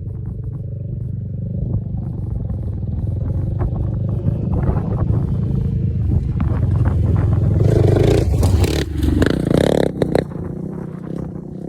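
Polaris Outlaw 500 ATV engine running and growing louder, peaking about eight to ten seconds in with a rushing noise over it, then easing off.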